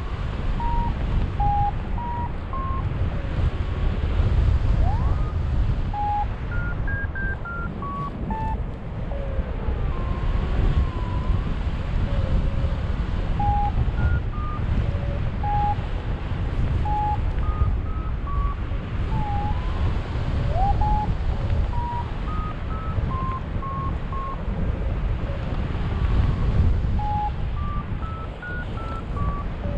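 Airflow rushing over the microphone in flight, with a paragliding variometer beeping on top: short electronic beeps that step up and down in pitch as the climb rate changes while soaring.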